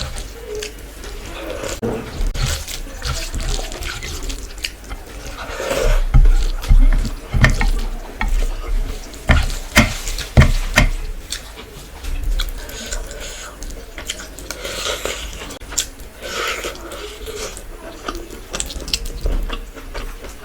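Close-miked wet eating sounds: chewing and lip smacking on a meal of chicken masala with gravy and rice, with irregular sharp clicks and squelches.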